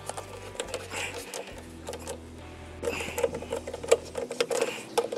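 Rapid, irregular clicking and scraping of a hand screwdriver turning the screws of a car's plastic under-engine cover, louder from about three seconds in.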